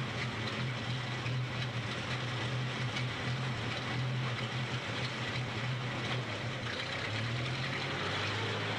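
Engine of a 1925 Indiana truck running steadily as the truck drives slowly, its note dropping a little about seven seconds in.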